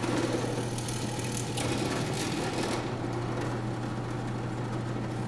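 Benchtop drill press running at full speed, its motor giving a steady hum, while the bit cuts into a clamped block of wood for roughly the first three seconds; then the cutting noise eases and the motor runs on.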